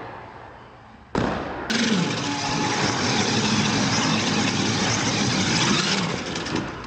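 A sudden thump about a second in as an R/C monster truck lands, then its motor revving up and down and its tyres scrubbing on the concrete floor as it spins in circles.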